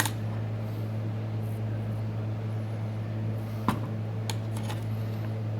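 A steady low hum with a few light clicks and taps over it, the sharpest about two thirds of the way through.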